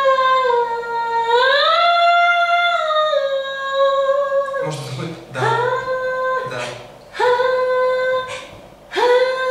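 A single voice singing long held notes in a high register: one long note that slides up and back down, then three shorter held notes, each starting with a quick scoop up into the pitch.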